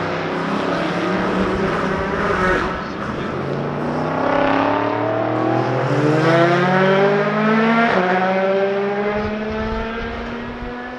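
Racing car engine accelerating hard, its pitch climbing steadily, with a sudden drop at an upshift about eight seconds in. It then climbs again while fading away.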